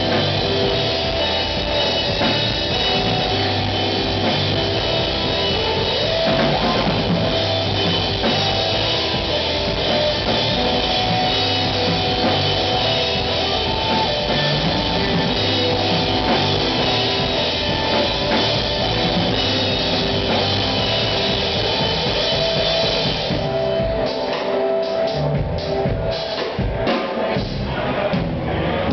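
Live rock band playing, with drum kit and electric guitar. Near the end the full wash of sound thins out to separate, spaced hits.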